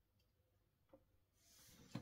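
Near silence: faint room tone with a light click about a second in and a soft rustle building near the end, ending in another click.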